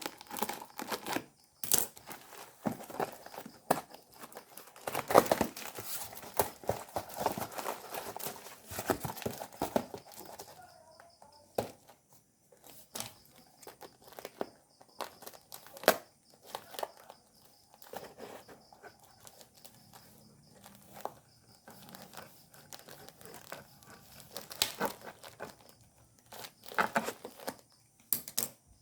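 Plastic packaging being unwrapped by hand, crinkling and rustling with tearing and scattered light clicks and knocks. It is busiest for the first ten seconds, goes sparse, then picks up again near the end.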